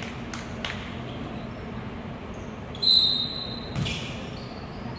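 Volleyball bounced on a gym floor, a few sharp knocks early, then a referee's whistle blown for about a second near the middle, followed by a thump of the ball about a second later, all in a reverberant gymnasium.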